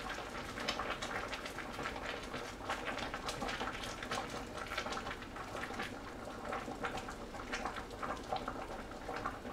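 Water boiling hard in an uncovered pot of corn cobs, a steady crackle of many small irregular bubbling pops.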